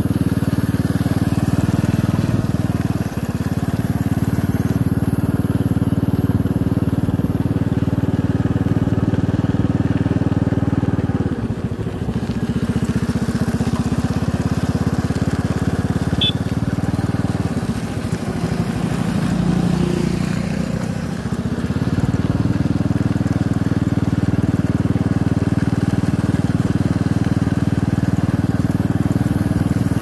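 Motorcycle engine running at a steady cruise along a dirt track. Around the middle its note drops and wavers for several seconds, as when easing off, then settles back to a steady run.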